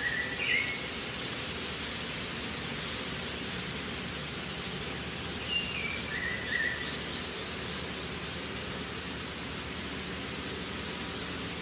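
Steady outdoor hiss, with a bird calling twice: a short falling whistled phrase right at the start and again about halfway through.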